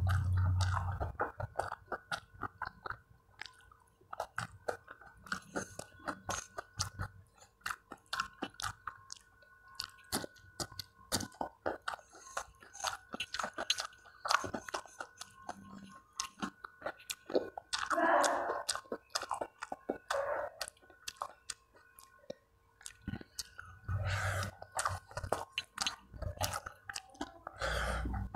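Close-up wet chewing and lip-smacking of a person eating rice and curry by hand, a quick run of small clicking mouth sounds, growing louder near the end.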